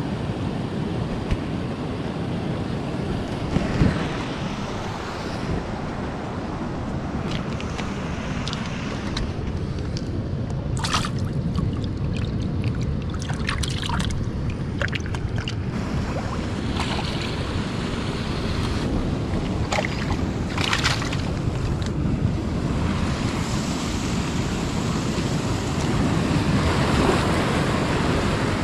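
Ocean surf washing on the shore with wind buffeting the microphone, a steady rushing noise. A scatter of short clicks and taps comes through in the middle.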